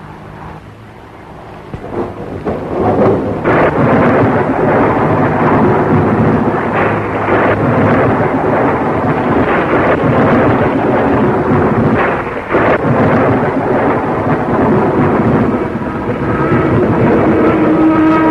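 A loud, rough rumbling roar on a worn 1930s film soundtrack, building up over the first three seconds and then holding, with a brief dip about twelve seconds in.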